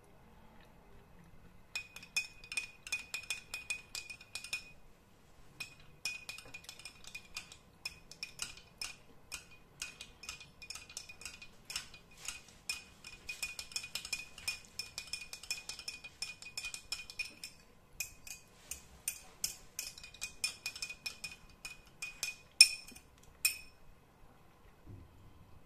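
A metal spoon stirring orange juice in a glass tumbler: rapid clinks of the spoon against the glass, each with a short ringing note. It starts a couple of seconds in, pauses twice briefly, and ends with a sharper clink near the end.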